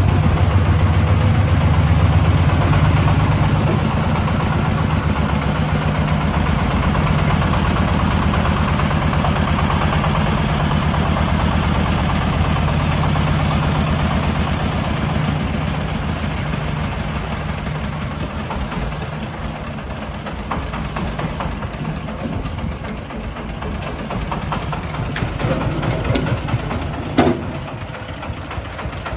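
Single-cylinder diesel engine of a công nông farm dump truck running steadily while the bed tips up to dump its load of sand. The engine is loudest over the first half and eases off later, with a few sharp knocks near the end.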